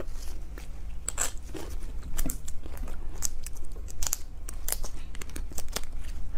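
Close-miked eating: chewing and wet mouth smacks on sauce-coated beef marrow bones, with small, irregular clicks of a metal spoon scraping out the marrow.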